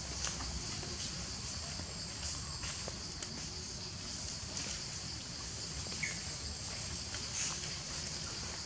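Steady high-pitched drone of insects, with scattered faint ticks and rustles.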